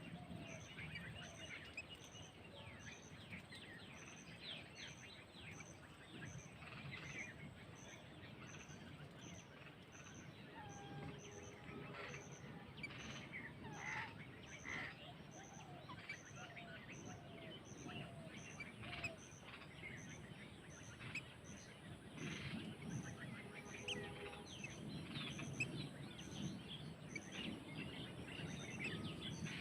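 Several songbirds chirping and calling, with a few short falling notes near the start. A faint, high, regular pulse repeats about one and a half times a second underneath.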